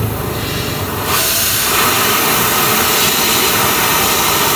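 Loud steady hiss, growing louder about a second in.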